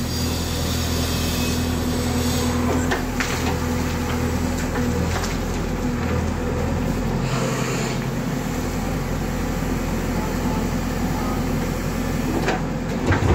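JCB backhoe loader's diesel engine running steadily while the digging arm works, with a few knocks from the bucket and arm. The engine note dips briefly about halfway through.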